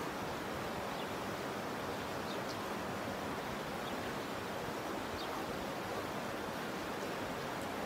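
Steady rushing noise of flowing water, with a few faint, short high chirps over it.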